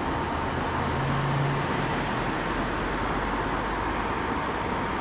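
Steady, even motor-vehicle hum with no distinct events.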